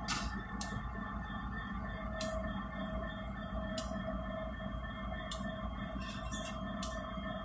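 Kansas City Southern diesel locomotive's bell ringing, a strike about every second and a half with the ring lingering between strikes, over the low rumble of the locomotives moving slowly along the track.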